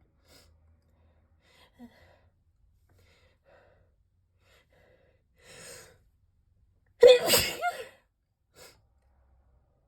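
A person's loud, spraying sneeze about seven seconds in, lasting under a second, preceded by a sharp gasping intake of breath and a few faint breaths, and followed by one short breath.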